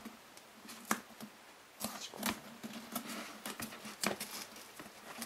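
Hands pressing and fitting a soft foam reinforcing strip onto the edge of a soft foam mask: irregular small clicks and rubbing of foam against foam.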